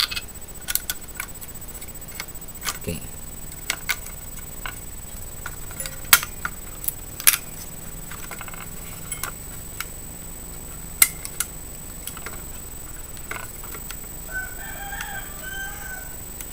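Sharp plastic clicks and knocks, about a dozen scattered through, from hands seating an Intel stock CPU cooler's push-pin locks and handling its fan wire on a motherboard. Near the end a short pitched call sounds in the background.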